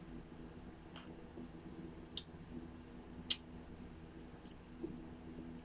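Eating sounds from ice cream being spooned out of a small paper cup: four short, sharp clicks of spoon and mouth, the third the loudest, over a low steady hum.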